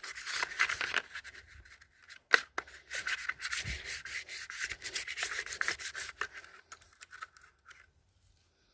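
Bicycle disc brake pad being scrubbed back and forth on cardboard in quick scraping strokes, scouring off the black glazed deposit that makes the brakes squeal. The rubbing pauses briefly, a sharp knock comes a little after two seconds, and the rubbing stops shortly before the end.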